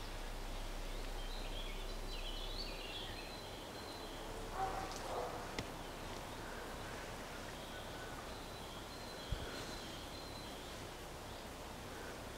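Quiet outdoor ambience with faint bird chirps now and then, and a single soft low thump about nine seconds in.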